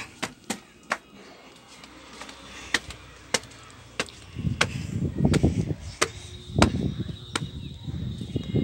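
Footsteps on a concrete rooftop, sharp taps roughly every half-second to second. From about halfway, gusts of wind rumble on the phone's microphone.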